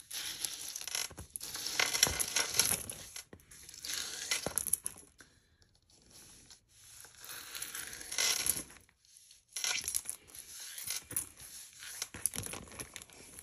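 A pile of broken costume jewelry pieces and glass beads rattling and clinking as they are stirred and sifted by hand, in irregular bursts with short pauses, with some rustling.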